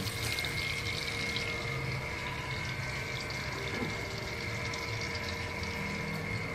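Hot cooking oil sizzling steadily in a wok over a gas flame, with a steady hum underneath.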